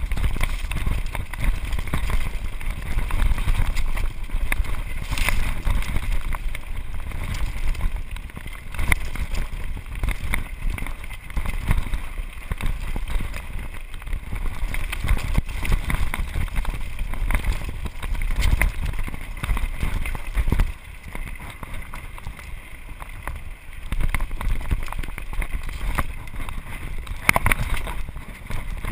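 Mountain bike bouncing down a rocky trail: a constant low rumble and clatter of tyres and frame over loose stones, with wind buffeting the microphone. It eases off briefly about two-thirds of the way through.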